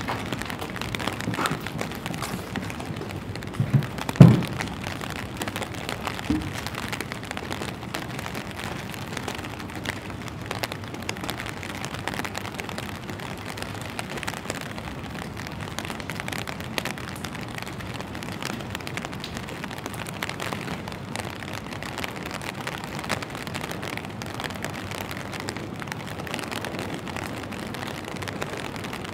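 Steady rain falling on wet pavement, with many small drips throughout. About four seconds in come a couple of low thumps, one of them much louder than everything else, and a smaller one a couple of seconds later.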